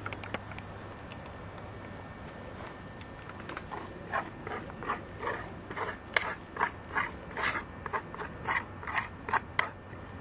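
A utensil scraping scrambled egg out of a frying pan, in short, even scrapes about two a second that begin about four seconds in.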